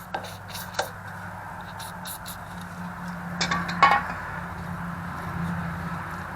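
Vice grips working a seized steel stud back and forth in an engine's timing cover: scattered metallic clicks and two short squeaks of the stud turning, about three and a half and four seconds in, over a steady low hum.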